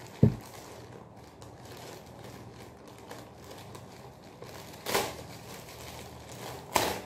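Plastic courier mailer bag crinkling as it is cut open with a knife: a low thump about a quarter second in, faint rustling, then two short sharp crinkles, one about five seconds in and one near the end.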